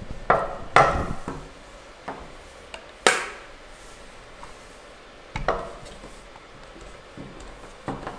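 Hands handling a small plastic RC skid-steer loader model on a wooden tabletop: scattered knocks and clicks of its parts and of the model being set down, the loudest about three seconds in.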